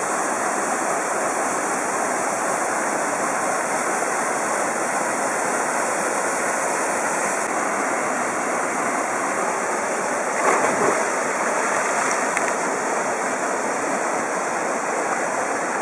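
Waterfall pouring into a rock pool: a steady, dense rush of falling water, with a short louder swell about ten and a half seconds in.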